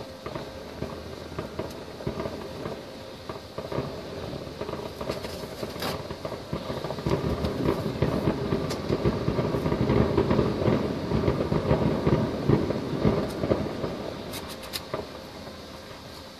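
Distant fireworks display: a dense, continuous run of many bursts that swells in the middle and eases near the end, with a few sharper cracks standing out.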